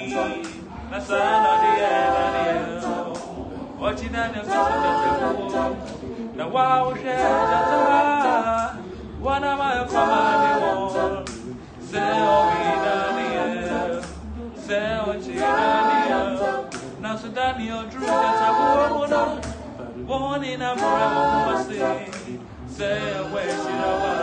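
Small mixed group of young voices, men and a woman, singing a Twi gospel song a cappella in harmony, in phrases with short breaths every couple of seconds.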